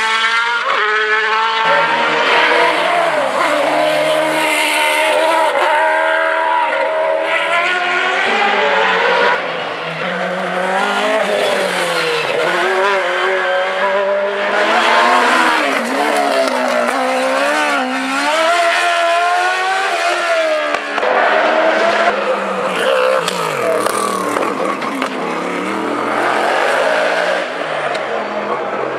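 Hillclimb race car engines revving hard, pitch climbing and dropping again and again through gear changes and lifts as the cars pass.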